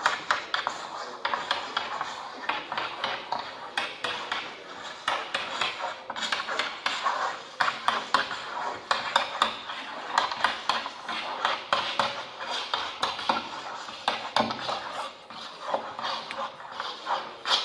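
Several people's repetitive mark-making on the surface of a long table, heard electronically amplified: a dense, irregular clatter of taps and scratches from many strokes overlapping, falling in and out of sync.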